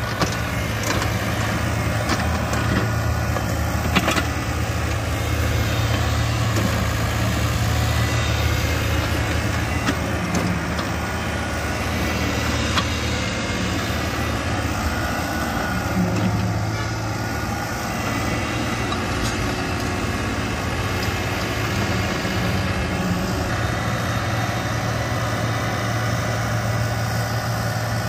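Yanmar ViO40-2 mini excavator's diesel engine running as the machine digs, its note dipping and rising as the hydraulic arm and bucket work. A few sharp knocks come through over the engine.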